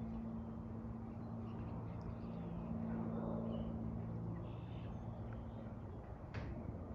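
A light piston-engine propeller aircraft drones steadily overhead, easing off somewhat in the last couple of seconds. Birds chirp faintly.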